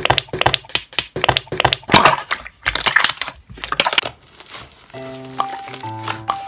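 Clear slime squeezed and pressed by hand, giving a rapid run of crisp, wet clicks and pops. The clicks stop about four seconds in, and background music with steady held notes starts.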